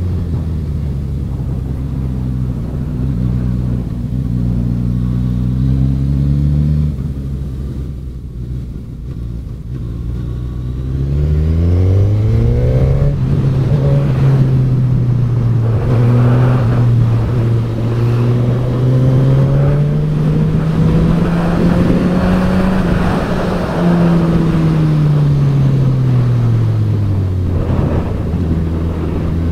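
Suzuki GSX-S1000F's inline-four engine under way: running steadily, dropping in pitch and level as the throttle is closed about seven seconds in, then rising sharply as it accelerates around twelve seconds in. It holds and climbs gently, then falls away again in the last few seconds as the bike slows for a bend.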